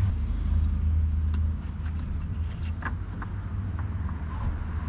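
A low steady rumble, stronger for the first second and a half and then easing off, with a few faint clicks of tools and engine parts being handled.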